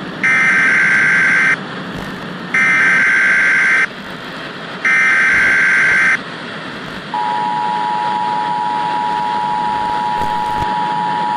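Emergency Alert System tones: three evenly spaced data bursts of about a second and a half each, then, about seven seconds in, the steady two-tone EAS attention signal, over a constant hiss.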